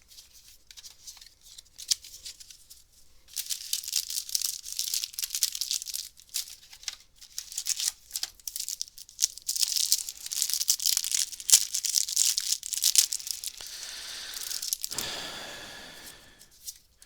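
A Star Trek CCG booster pack's wrapper being torn open and crinkled. A few light clicks of handling come first, then a dense, crackling crinkle starts about three seconds in and lasts some ten seconds, easing into a softer rustle near the end.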